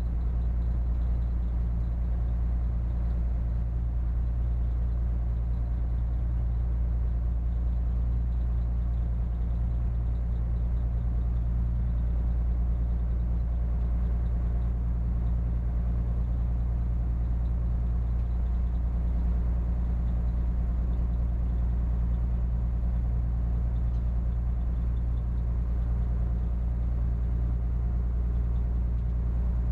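A spits barge's diesel engine running steadily under way, a constant low drone.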